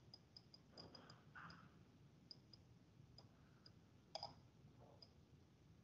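Near silence broken by faint, irregular clicks from the pointing device used to draw on screen, about a dozen in all, the loudest a quick pair about four seconds in.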